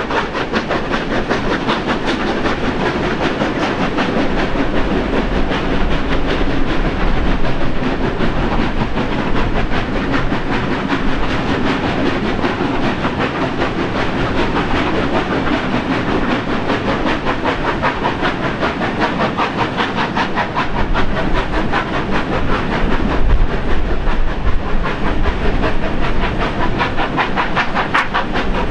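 Two steam locomotives, NSWGR 30 class 3016 and 36 class 3642, double-heading a passenger train up a steep grade under heavy load. Their exhaust beats come in a fast, even rhythm, heard from a carriage window behind them.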